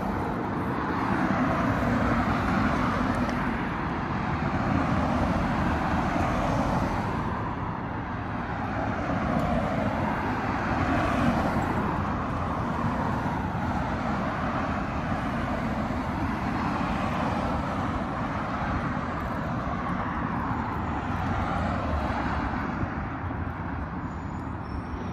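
Busy road traffic: a steady wash of passing cars and tyre noise that swells and fades in slow waves.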